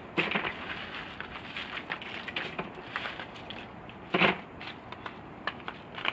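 Ice cubes clinking and crunching as they are handled in a cooler box, a run of short sharp clicks with a louder clatter just after the start and the loudest about four seconds in.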